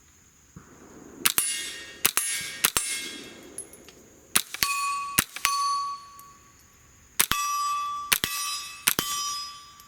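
Suppressed Smith & Wesson M&P 15-22 firing subsonic .22 LR rounds in an irregular string. Each shot is a sharp crack followed by a metallic ring that fades over about a second.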